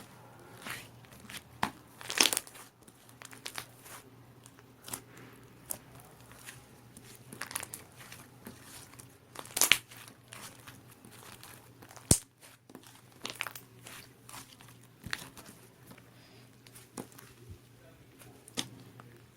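Grey 'cement' slime being squished and stretched by hand, giving irregular crackles and crinkling snaps. The sharpest snaps come about two, nine and a half, and twelve seconds in.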